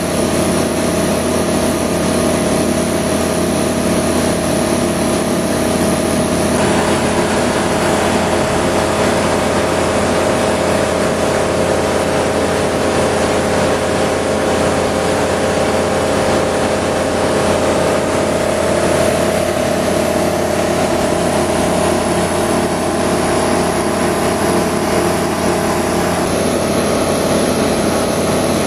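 The Rotax 912 four-cylinder engine and propeller of a Flight Design CTSW light aircraft, droning steadily in level flight as heard inside the cockpit.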